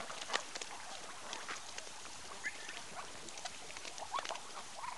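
Ducklings pattering and ticking faintly, with a few short rising peeps in the second half.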